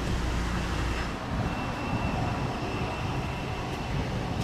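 Steady airport ramp noise from a parked Airbus A320 and its ground equipment: a constant high-pitched whine over a rumble, with the deepest rumble easing about a second in.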